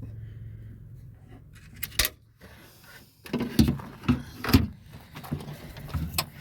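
Clicks, knocks and rattles of the freed door lock actuator and its cables being handled inside a car door. The sound is sparse at first, with one sharp click about two seconds in, then becomes a quick run of louder knocks from about halfway through.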